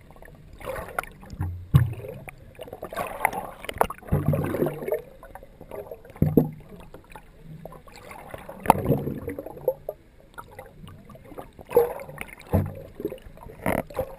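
Sea water sloshing and splashing against a sailing boat's hull, in irregular surges, with sharp knocks here and there.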